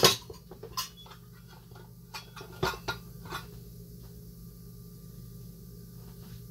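Glass jars and a stainless steel bowl being handled on a counter: about six sharp clinks and knocks, the loudest right at the start, the last about three and a half seconds in. A steady low hum follows.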